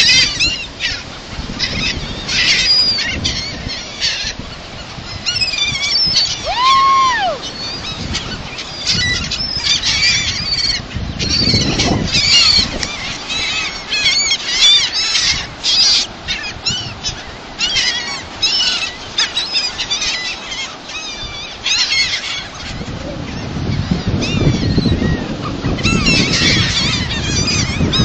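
A flock of gulls calling: many short, overlapping squawks throughout. A low rumble grows louder near the end.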